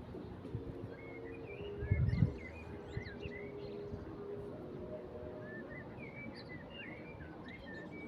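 Small songbirds chirping and twittering over a low outdoor background, with a brief low rumble about two seconds in.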